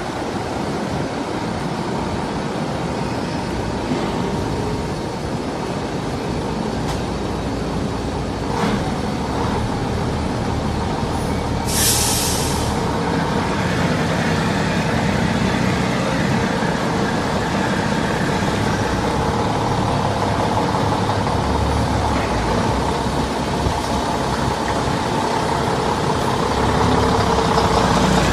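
Diesel engine of a cab-over container truck running at low speed while it reverses a container trailer. About twelve seconds in there is a hiss of about a second from the air brakes. The engine gets louder near the end.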